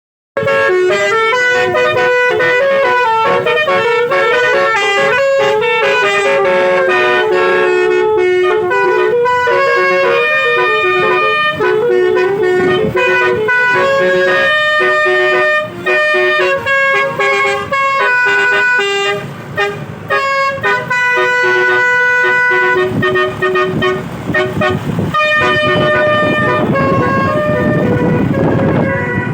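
Telolet bus horn, a multi-tone horn set playing a rapid tune of changing notes almost without a break. A rushing noise rises under it near the end.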